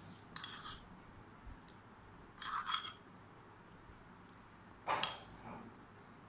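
A metal spoon clinking against a stainless steel bowl three times, each clink ringing briefly, as garlic paste is spooned out onto chicken pieces.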